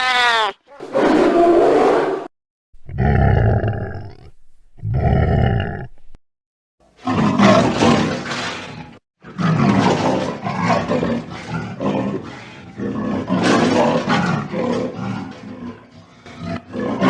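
A leopard roaring. A few separate calls come first, then from about seven seconds in a long run of repeated hoarse, rasping grunts, the leopard's 'sawing' call.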